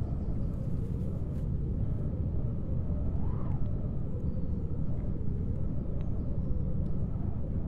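Steady low rumble with a faint higher tone that wavers up and down, swelling to a peak about three and a half seconds in.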